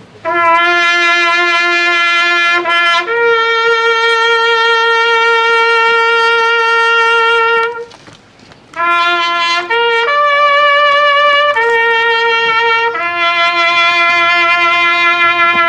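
Military call played on a trumpet, in long held notes that step between a few pitches. There are two phrases, with a short pause about 8 seconds in.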